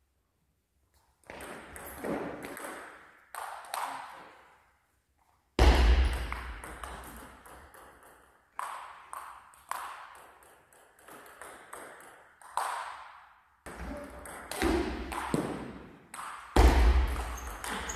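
Table tennis balls being struck by bats and bouncing on the table in a series of sharp, irregular pings that ring on in a large sports hall. A couple of heavier thuds stand out as the loudest moments.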